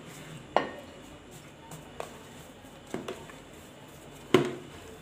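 A few sharp knocks and taps from a plate cover and a plastic bowl being handled on a counter while risen yeast dough is punched down in the bowl by hand; the loudest knock comes about four seconds in.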